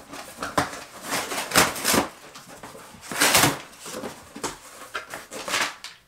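A cardboard shipping box being opened by hand: the flaps scrape and the cardboard and packing inside rustle in a run of irregular bursts, the loudest about three seconds in.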